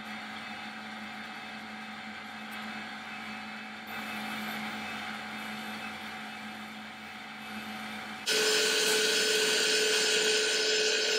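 Motor-driven leather edge burnisher running with a steady hum while Tokonole-treated wallet edges are worked against its spinning slotted spindle. About eight seconds in the sound turns suddenly louder, with a higher whine and a hiss.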